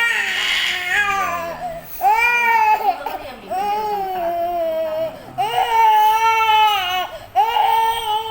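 Infant crying hard in about five long, high-pitched wails, with a short catch of breath between each.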